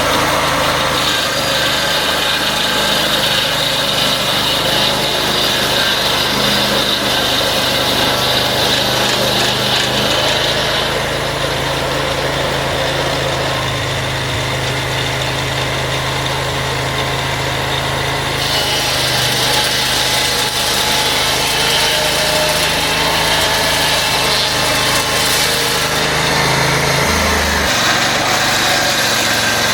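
Band sawmill's petrol engine running steadily. A higher hiss over it fades out about eleven seconds in and comes back some seven seconds later.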